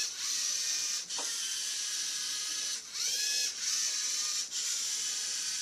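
A small programmed robot's electric drive motors and gears whirring as it drives, stopping briefly and starting again several times, about a second in, near three seconds and again a second or so later, with the pitch sweeping at each stop and start as it switches between driving forward, backing up and turning.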